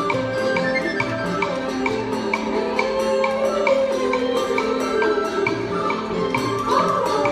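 Traditional Vietnamese music accompanying a water puppet performance: a melody with a slide in pitch around the middle, over a steady wooden ticking at about four beats a second.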